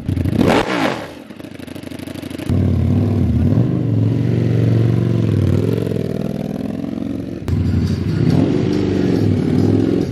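Ducati Panigale V4 S's V4 engine through a new Termignoni full exhaust: a sharp throttle blip about half a second in, then a steady loud run at low revs with the pitch wavering as the bike pulls away. It changes abruptly near the end to a steadier low engine note.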